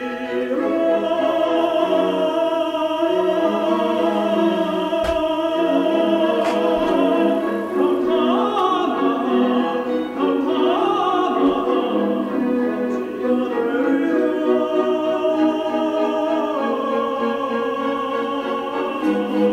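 Classical music with an operatic singing voice, long held notes sung with vibrato over instrumental accompaniment.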